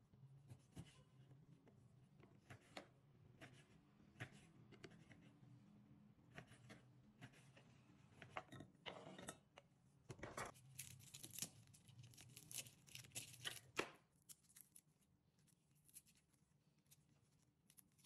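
Faint knife-on-board cutting: a kitchen knife slicing limes on a bamboo cutting board, scattered light taps and clicks of the blade. A denser run of scraping and knocking comes past the middle.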